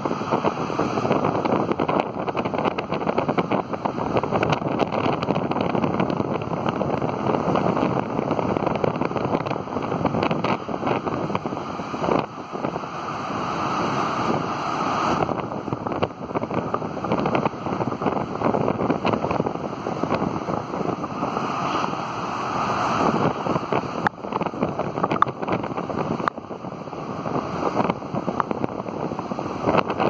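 Large storm waves crashing and churning against coastal rocks, with heavy wind buffeting the microphone throughout.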